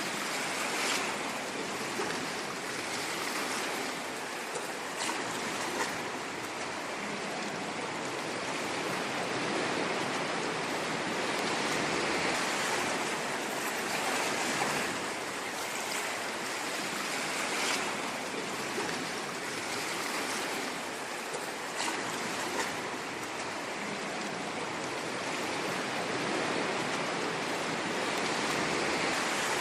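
Ocean waves washing on a shore: a continuous hiss of surf that swells and eases gently every few seconds.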